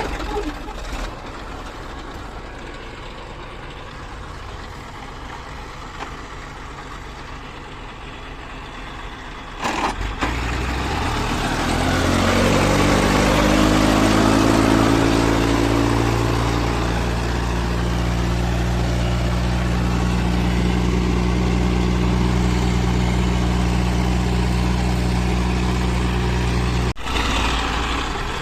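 Heavy diesel engine running steadily at low revs, then, about eleven seconds in, revving up in a rising pitch and holding steady at high revs, as under working load. It cuts off abruptly near the end.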